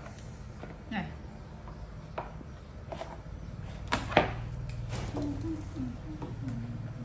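Scattered clicks and knocks of plant stems being handled in a plastic tub, with two sharp knocks about four seconds in, the second the loudest.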